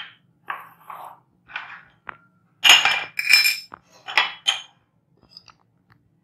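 A metal spoon clinking against a glass mixing bowl. Short scrapes and taps are followed by a few bright, ringing clinks, the loudest about three seconds in.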